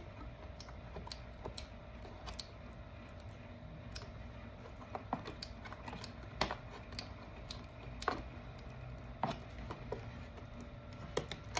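Scattered light clicks and taps of a plastic doorbell mount being handled while its break-off tabs at the bottom are worked, over a faint steady hum.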